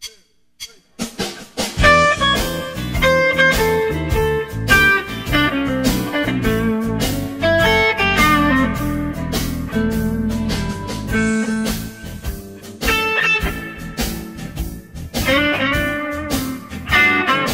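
Background blues music with guitar and drums, starting about a second in.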